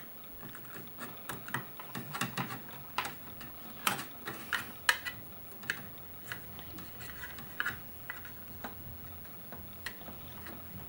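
Irregular light clicks and taps of a 2.5-inch SSD being fitted by hand into a computer case's drive cage.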